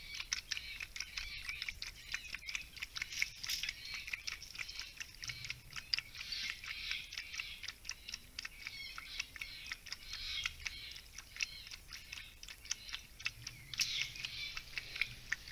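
A coati lapping water from a shallow plastic basin: fast, irregular little wet clicks, over a faint high-pitched background chorus.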